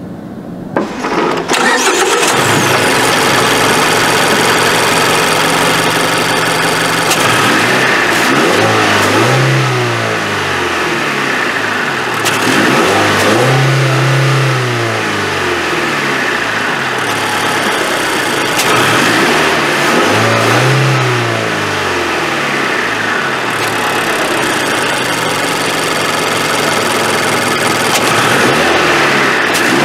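2013 Mazda 6's 2.0-litre PE-VPS (SkyActiv-G) four-cylinder petrol engine revved repeatedly with the car standing still, the pitch climbing and falling back about every six or seven seconds. The revs top out around 4000 rpm when the car isn't moving. The engine sound comes in abruptly about a second in.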